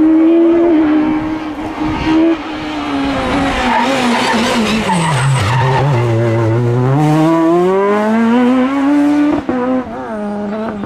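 Rally car engine held at high revs, then falling off to its lowest about five seconds in and climbing steadily again as the car accelerates out of the corner, with the tyres skidding. A sharp click near the end.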